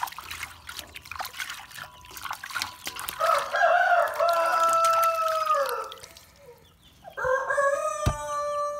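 Water splashing and dripping in a stainless steel basin as a pumpkin is washed by hand. A rooster crows loudly twice: a long crow from about three seconds in that falls in pitch at its end, and a second starting near the end.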